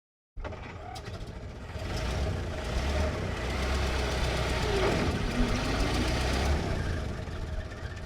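1924 Ford Model T's four-cylinder engine starting up, then running at a steady idle. The start comes just after a moment of silence.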